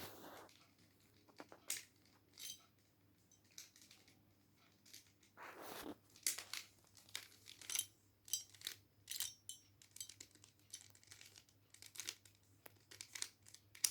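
Faint, irregular clicks and clacks of a 3x3 mirror cube's plastic layers being turned by hand as it is scrambled, with one short scrape about five and a half seconds in. The clicks come faster in the second half.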